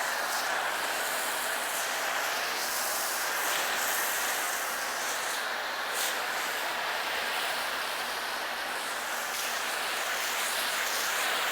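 Pressure-washer foam cannon spraying thick car-wash soap foam: a steady, loud hiss of air and water through the nozzle.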